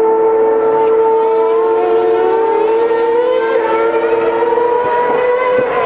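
Formula One cars' engines running at high revs on the circuit, giving a steady whine. From about two seconds in, a second engine note rises in pitch as another car accelerates.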